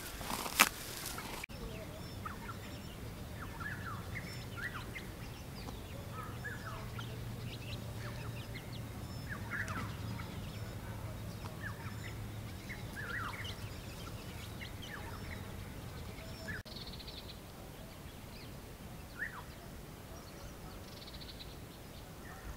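Scattered short bird calls and chirps, fowl among them, over a faint low hum, with a loud sharp noise about half a second in.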